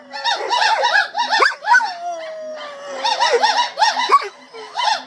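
Gibbons singing in fast runs of repeated hooting notes, about six or seven a second. A dog howls along in one long, slowly falling note about two seconds in, between the runs.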